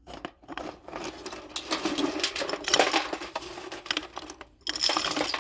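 Clay pigeon targets clinking and rattling against each other as they are handled and stacked: a dense run of small hard clicks, pausing briefly near the end before a few more.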